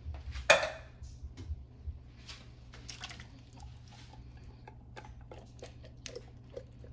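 Kitchen cookware clatter: one sharp clank about half a second in, then a scatter of light taps and clicks of utensils against pots and cans.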